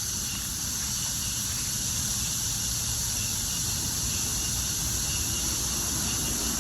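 Steady, high-pitched insect chorus, over a low rumble of wind or movement on the microphone.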